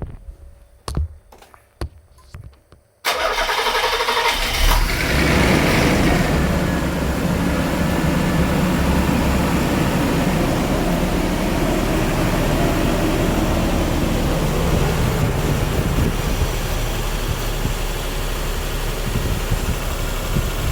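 A few sharp clicks, then the PY31 Nissan Cedric's V6 engine cranks about three seconds in, catches after a second or so, and settles into a steady idle. This is an engine with an abnormal noise from the distributor, put down to a dried-out centre shaft.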